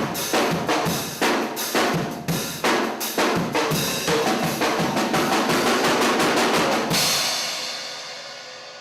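Drum kit played hard: sharp accented hits, then a fast roll, ending about seven seconds in on a final crash that is left ringing and fading.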